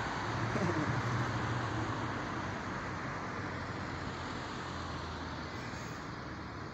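Cars passing on a city road: a steady hiss of tyres and engines, a little louder in the first couple of seconds and easing off toward the end.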